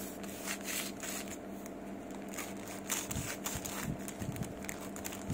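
Kitchen knife sawing through a paper-wrapped sandwich, with irregular crackling and crunching of the wrapping paper and bread as the blade works through. A few duller knocks come in the second half.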